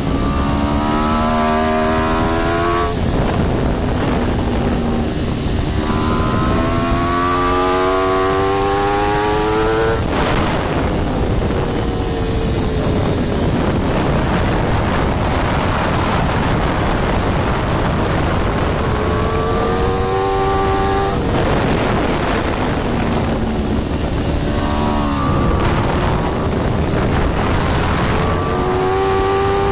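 Aprilia RSV4's V4 engine at full racing effort, heard onboard over wind rush. It revs up in several rising pulls, each cut short and picking up again at a lower pitch as the rider shifts up, with a stretch in the middle where the engine note falls away and the wind noise dominates.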